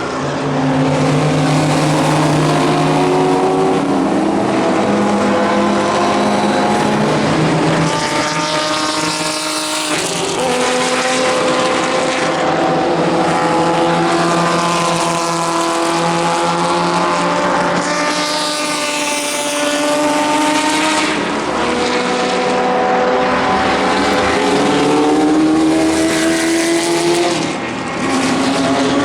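Historic racing cars, Ford GT40 V8s and British classic sports cars, running hard past one after another. The engine notes climb in pitch through each gear and drop back at the shifts, with several cars heard at once.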